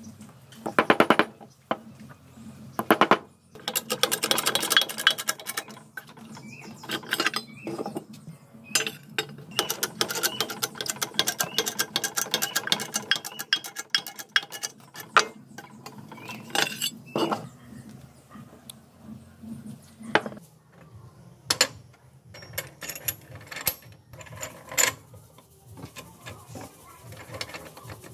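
Small steel parts and tools clinking and clattering during hand work, with runs of quick metallic clicks and scattered single knocks.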